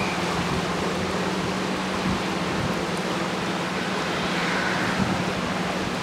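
Steady rush of wind over open water, with a low, steady hum underneath.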